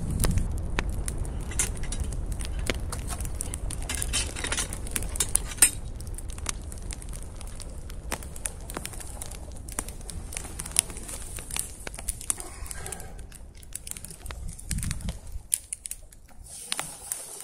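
Wood campfire crackling with frequent sharp pops over a low rumble of flames, growing quieter near the end.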